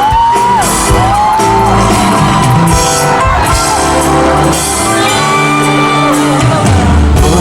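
Live band playing the instrumental intro of a pop ballad, bass and drums under sustained chords, with a few high shouts from the audience in the first two seconds.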